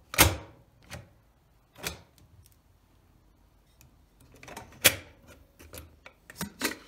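Clicks and metallic clacks from an Emsan clip-on pressure cooker lid: the stainless steel lid set on the pot and its clamp arms snapping onto the rim as the top knob is turned to lock. A sharp click right at the start, a few lighter ones after, and a louder cluster about five seconds in.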